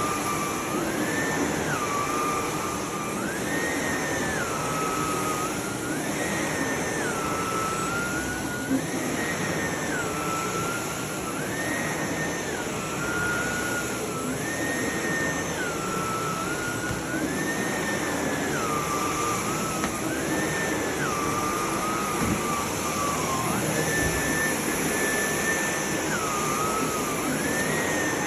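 Sebo D4 vacuum cleaner running, its motor whine over a steady rush of air stepping up and down in pitch about every three seconds.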